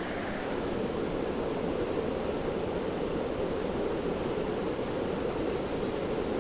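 Steady outdoor background noise, an even rush with no single source standing out. From about two seconds in, faint short high chirps repeat roughly twice a second.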